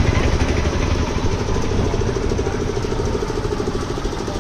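An engine idling steadily, with a fast, even beat.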